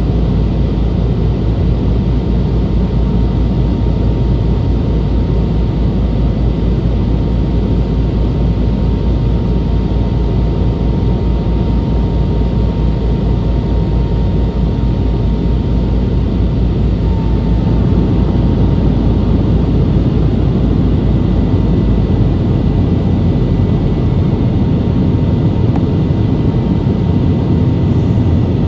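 Airliner engine and airflow rumble heard from inside the passenger cabin, loud and steady, with a faint thin whine above it.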